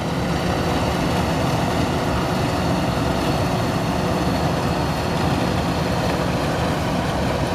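Kubota DC93 combine harvester working in a rice field: its diesel engine and harvesting machinery run at a steady, even level with no change in pace.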